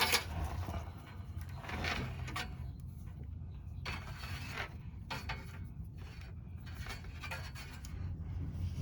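Trailer taillight wiring harness being pulled and fed through a metal trailer frame: several short scrapes and rustles as the wires rub against the frame.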